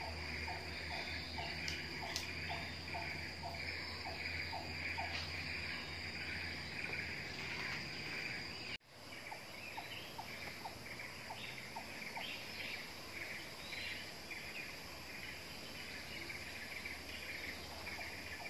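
Tropical forest ambience: a steady high drone of insects with chirping insects under it. A short animal call repeats at about two or three notes a second during the first few seconds, and again for a run about ten seconds in.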